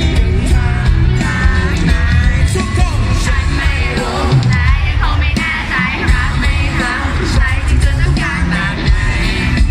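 Live pop band playing loudly, with a male lead singer over electric bass, electric guitar and keyboards.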